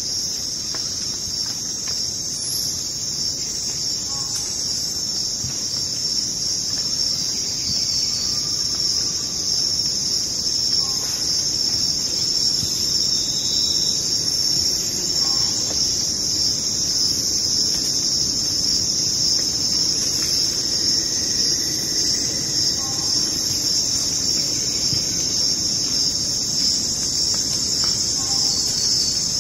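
Steady, high-pitched chorus of insects, a continuous shrill trill, with faint short calls now and then beneath it.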